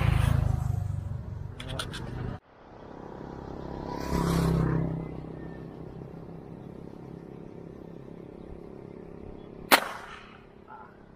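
A single sharp, loud snap about three-quarters of the way through as a rubber-powered tiksay spear-fishing gun is fired down into the water. Before it, road traffic rumbles on the bridge and cuts off abruptly.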